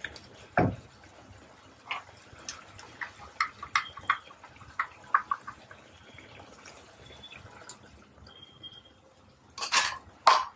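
Thick curry gravy simmering in a pan, popping and spluttering in scattered small splats, as thick first-extract coconut milk is poured in. A thump just after the start and a louder clatter or scrape near the end.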